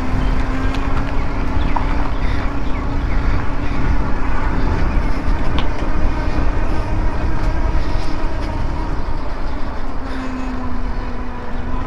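Riding noise on a Super 73 R2 electric bike: an even rush of wind and tyre noise with a steady low hum running under it.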